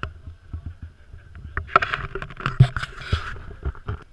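Kayak paddling: a string of sharp knocks with water splashing, the loudest splashing between about two and three seconds in.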